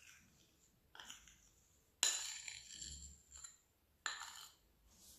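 A metal spoon clinking and scraping against a glass Nutella jar while scooping the spread out: three sharp knocks about a second or two apart, the loudest about two seconds in, followed by a scrape.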